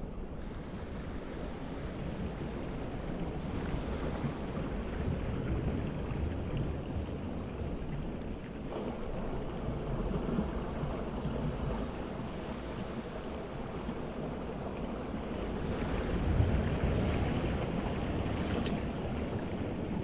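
Wind and sea waves: a steady rushing wash that swells and eases, loudest about three-quarters of the way through, with wind rumbling on the microphone.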